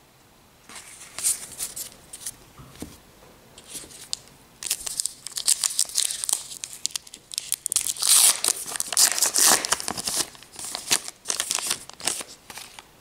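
Wrapper of a 2018 Topps Gypsy Queen baseball card pack being torn open and crinkled in the hands. Light scattered crackles at first, then dense high-pitched crackling from about a third of the way in until just before the end.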